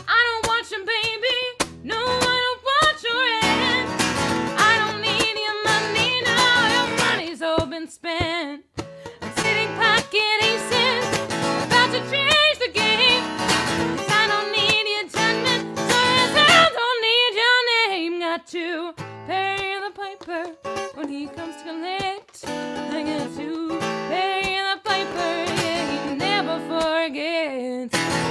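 A woman singing a song, holding notes that waver, to her own strummed acoustic guitar with a capo on the neck.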